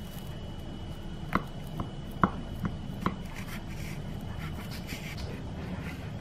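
Kitchen knife cutting through a baked egg pie's pastry crust in an aluminium foil tin: five crisp ticks over about two seconds as the blade cuts, over a steady low hum.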